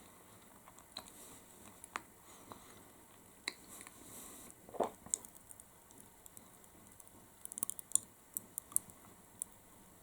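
Popping candy crackling in a mouthful of chocolate: faint, scattered little pops and clicks, with a short mouth sound about halfway and a quick cluster of sharper crackles near the end. The crackling is very faint.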